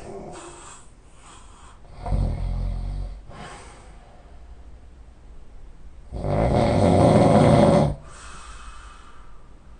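A man snoring heavily in his sleep: two loud snores about four seconds apart, the second louder and longer at nearly two seconds, with softer breaths between them.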